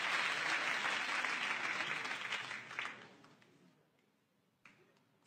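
Studio audience applauding, the clapping dying away about three seconds in. One faint knock near the end.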